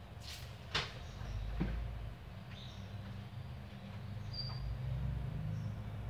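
Wire birdcage being handled, with a few sharp clicks and knocks in the first two seconds, over a steady low hum. A couple of short high chirps from the caged birds.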